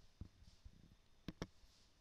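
Faint clicks at a computer over near silence: one soft click just after the start, then two sharp clicks in quick succession about a second and a third in, the press-and-release or double-click of the controls used to bring another program window to the front.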